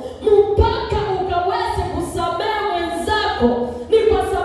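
A woman singing a worship song with sustained, sliding notes, possibly joined by other voices, over low thuds of a beat.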